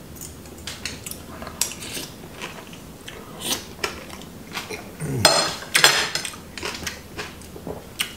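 Spoon and fork clinking and scraping on a ceramic plate while eating, in scattered light clicks, busiest and loudest about five to six seconds in.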